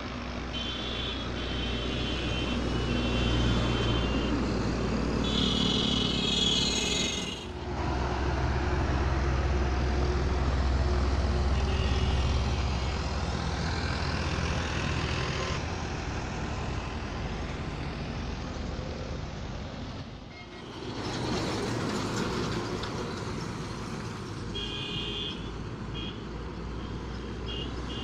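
Highway traffic with heavy trucks passing: a low diesel engine rumble and tyre noise. A high-pitched horn beeps repeatedly a few times near the start and again near the end.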